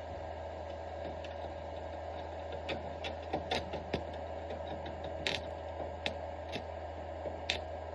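Small welding machine humming steadily, with a scattering of short, sharp crackles and clicks starting a few seconds in as the arc is struck on and off against the truck frame.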